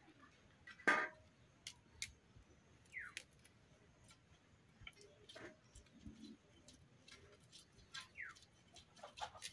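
Scattered light clicks and scrapes of hand food preparation: a knife scraping the scales off a fish and cauliflower florets being snapped apart. The loudest scrape comes about a second in, and a short falling chirp is heard three times.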